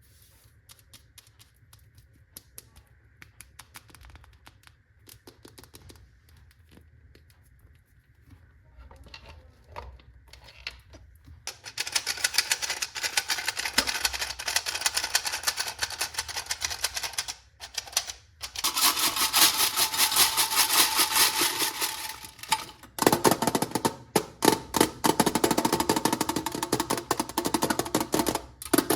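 Small hard candies such as M&M's pouring and clattering into a plastic toy bathtub: sparse light clicks at first, then a loud, dense rattle from about twelve seconds in, broken by two short pauses.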